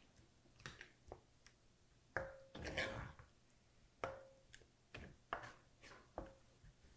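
Wooden spoon stirring thick tomato sauce in a small pot: soft scattered knocks and scrapes against the pot, some with a brief ring.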